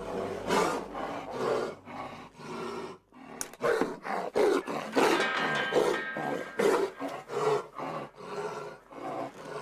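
Young Siberian tiger vocalizing at close range in a string of short, loud calls, about one or two a second, with a brief pause about three seconds in.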